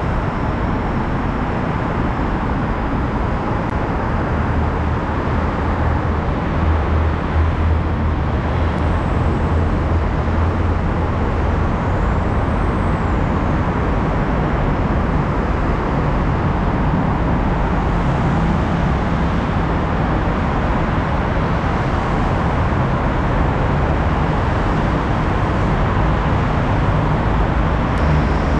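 Steady road traffic noise from a busy multi-lane road: a dense wash of many engines and tyres. A deeper engine drone swells from about a fifth of the way in and fades before halfway.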